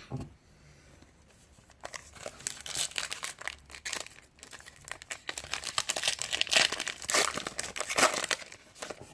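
Trading-card pack wrapper being torn open and crinkled in the hands: a dense run of sharp crackling rustles starting about two seconds in.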